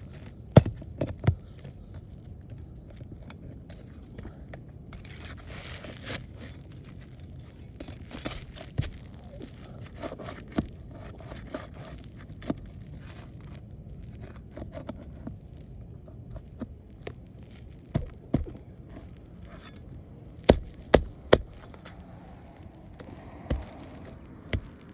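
Steel flat bar prying and scraping under asphalt roof shingles as they are unsealed, with scattered sharp clicks and knocks over a steady low rumble, loudest in a quick run of three about twenty seconds in.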